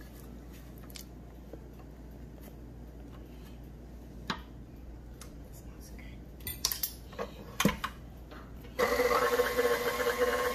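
Spatula scraping and knocking against a stainless-steel stand-mixer bowl, with a few sharp knocks near the middle, then about nine seconds in the stand mixer switches on and runs steadily with a whine, its flat beater turning thick rice-flour batter.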